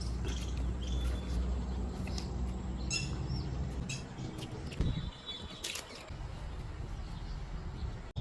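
Birds chirping over the low rumble of heavy diesel machinery; the rumble fades about four seconds in. Scattered short clicks.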